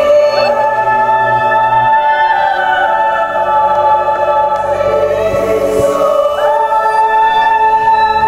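Ambient music of layered, choir-like sustained tones that hold and slide slowly between pitches over a low drone.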